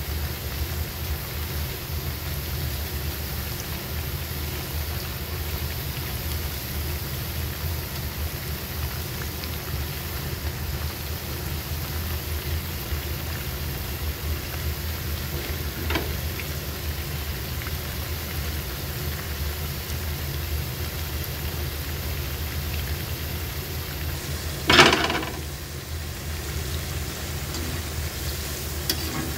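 Pakoras deep-frying in hot oil in a wok: a steady sizzle with a low hum underneath. A faint metal tick comes about halfway, and a louder sharp clink of the metal spatula against the wok comes near the end.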